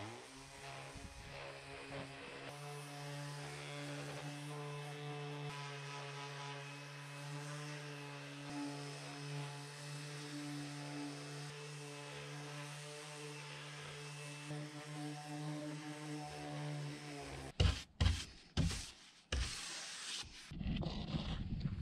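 Makita 18 V cordless random orbital sander running on wooden tongue-and-groove boards, a steady hum. It stops about three-quarters of the way through, followed by a few knocks and then the scratchy rubbing of a brush sweeping off the sanding dust.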